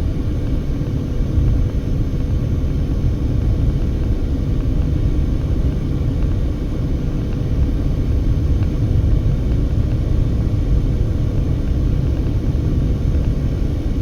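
Steady road and engine noise heard inside a moving car: an even low rumble with a faint steady hum.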